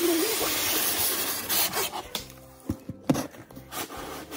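Polystyrene foam packaging rubbing and squeaking as a porcelain mug is pulled out of its foam insert, a dense rustling scrape for about two seconds, followed by a couple of light knocks.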